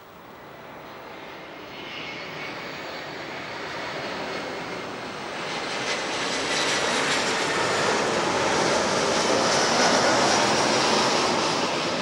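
Airbus A340-300 on final approach, its four CFM56 turbofan engines giving a jet roar with a high whine. The sound swells steadily as the airliner comes closer, peaks about ten seconds in and starts to ease near the end as it passes.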